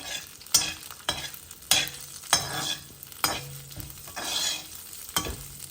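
Metal ladle stirring and scraping in a pan of cumin seeds, curry leaves and green chillies frying in hot oil, with a sharp scrape or clink about every second.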